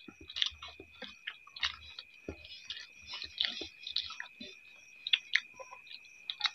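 Two people chewing and smacking their lips as they eat rice and mushroom curry by hand, a run of many short, irregular wet smacks and clicks.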